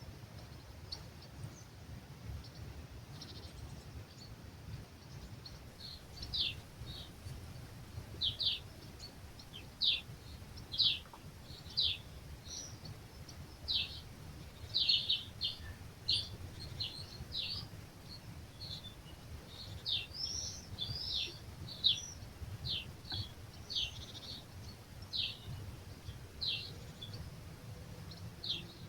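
Songbird calling with short, sharp, high notes that drop in pitch, repeated roughly once a second and growing louder a few seconds in, over a low steady rumble of breeze.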